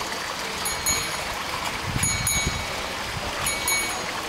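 Water running and trickling through a miniature town's model water features, pumped round. A short, high-pitched double squeak repeats about every second and a half over the water.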